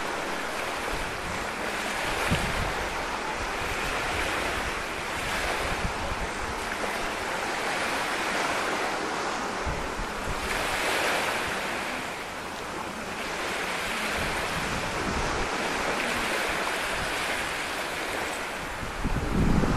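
Outdoor rushing noise, like surf or wind, swelling and easing every few seconds.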